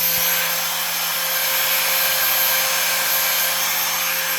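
Electric power-tool motor running steadily, spinning a tire on a truing rig at the end of the cut. A steady hum and a high whine sit over a loud even hiss.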